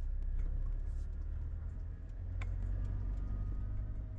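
Car interior rumble from the engine and tyres while driving slowly, steady and low, with a single sharp click about two and a half seconds in.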